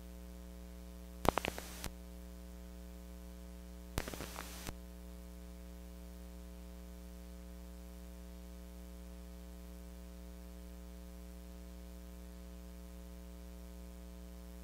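Steady electrical mains hum from the recording, with two brief short sounds about a second and a half in and again about four seconds in.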